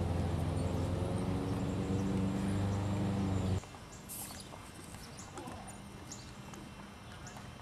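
An engine runs steadily with a low hum and cuts off abruptly about three and a half seconds in. After that, a horse's hoofbeats sound faintly on sandy arena footing as it canters around small jumps.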